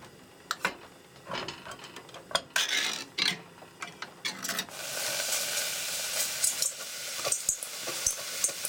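Handheld crank can opener cutting around a steel can lid, giving irregular clicks and short grinding rasps. About halfway through a steady hiss with light crackling takes over from the lit butane camp stove and the heating pot.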